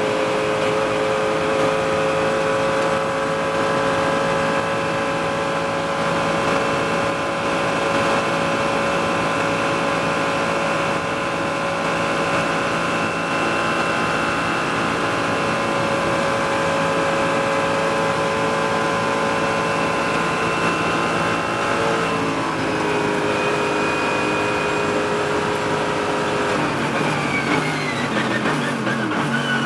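A BMW M240i Racing's turbocharged straight-six, heard from inside the cockpit, is held at high revs under full throttle along a straight. About three-quarters of the way through the pitch steps down slightly. Near the end the revs fall in several steps as the car brakes and downshifts.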